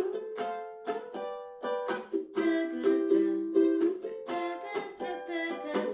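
Ukulele strumming the C, F and G bar chords in turn, several strums on each chord.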